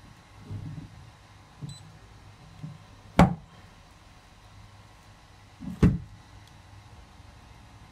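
A few soft bumps, then two sharp knocks a little under three seconds apart: the plastic-and-metal case of a face-recognition access terminal knocking against a wooden tabletop as it is handled and turned over.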